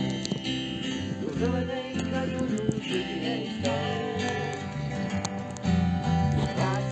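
Acoustic guitar and mandolin playing a strummed folk song, with voices singing along. Muffled, as recorded through a phone's waterproof pouch.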